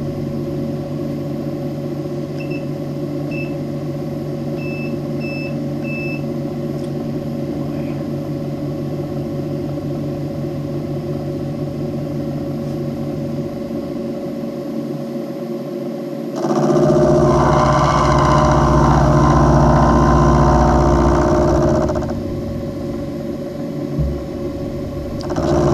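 Milling machine running steadily with its end mill turning. About two seconds in come a few short high beeps, and in the second half the sound grows louder and rougher for about five seconds as the table carries the steel work past the cutter, then drops back to the steady running.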